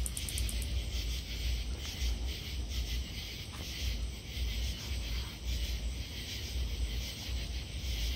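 A katydid, which the recorder takes for a greater anglewing (Microcentrum rhombifolium), gives a rapid, even series of high clicks that stops under a second in. Faint irregular high ticking and a low steady rumble continue after it.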